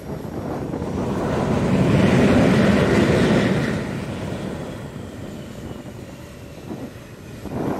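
Jet engine noise on a carrier flight deck. It swells to a peak about two to three seconds in, then dies down to a lower steady rush.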